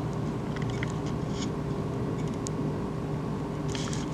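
Magnetic ballast of a fluorescent fixture humming steadily as it drives an end-of-life Philips TL-D 18 W tube that is flickering at its worn electrode, with a few faint clicks about a second in and again near the end.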